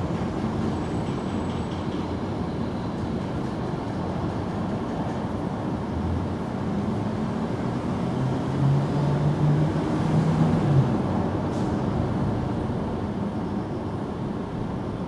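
Steady low rumble of passing vehicles, with an engine note swelling about eight and a half seconds in and fading by about eleven seconds.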